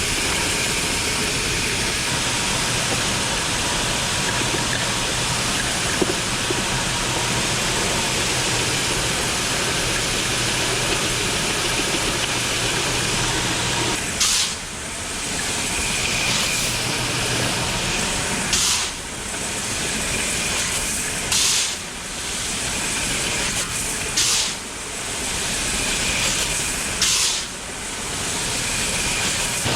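Machinery running with a steady hissing rush and a low hum. About halfway through the hum drops away, and short sharp hissing bursts come every three seconds or so, each followed by a brief dip.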